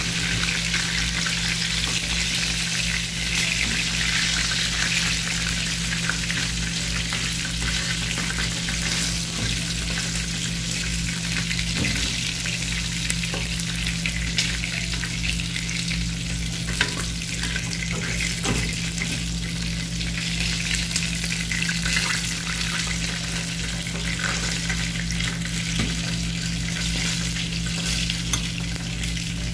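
Chicken drumsticks shallow-frying in hot oil in a pan: a steady crackling sizzle, with a few light clicks along the way.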